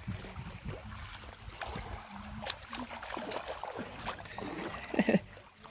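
Shallow seawater washing and trickling at the shoreline, with a few faint clicks, and a brief voice sound about five seconds in.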